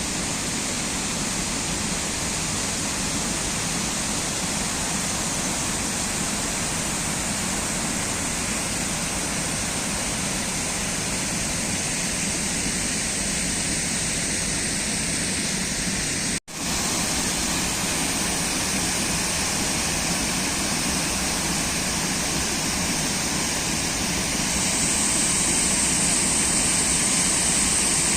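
Jagala waterfall's water pouring in a steady, even rush. It cuts out for an instant a little past the middle and grows slightly louder near the end.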